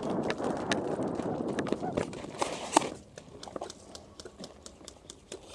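Hurried footsteps and gear rustling on dirt for about the first three seconds, with scattered sharp clicks of airsoft guns firing throughout. After that it is quieter, with only scattered shots.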